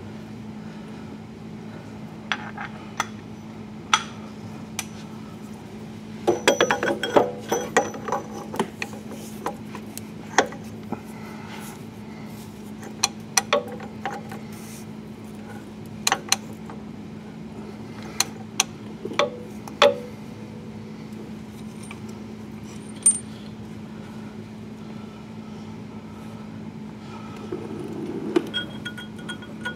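Scattered sharp metallic clinks and clicks of a socket and wrench being worked onto the forklift engine's crankshaft pulley bolt, with a quick flurry of them about six seconds in, over a steady low hum.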